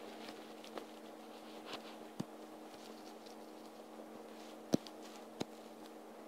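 A few light taps on a tablet touchscreen, the loudest a little past the middle, over a faint steady electrical hum.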